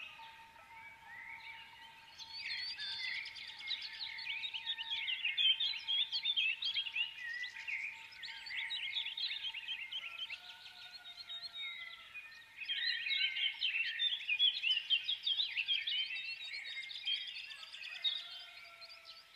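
Small birds chirping and twittering in quick, overlapping calls, quieter for the first two seconds, over a faint steady tone.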